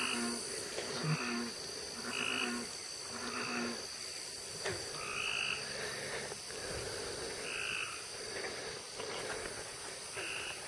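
Frogs croaking: short calls repeating about once every second or two.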